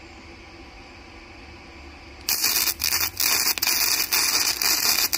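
HITBOX HBM200 flux-core wire-feed welder striking an arc a little over two seconds in, then a loud, steady crackling sizzle of the arc burning at the welder's maximum setting, broken by a few brief drop-outs.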